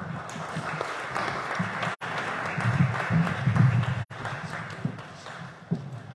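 Audience applauding steadily, with the sound cutting out for an instant twice.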